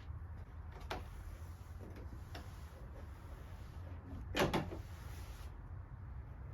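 Convertible top frame and fabric being moved by hand: a few light clicks, then a louder clunking rattle about four and a half seconds in, over a low steady hum.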